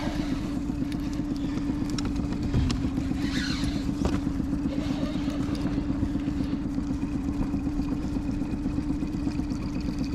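Boat motor running at a steady speed, a constant even hum over a low rumble, with a couple of light knocks.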